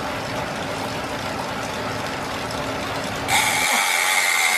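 Elite Direto direct-drive smart trainer running under steady pedalling at raised speed: a steady mechanical whir with a faint low hum. About three seconds in the sound changes suddenly to a brighter hiss with a steady high whine, and the low hum drops away.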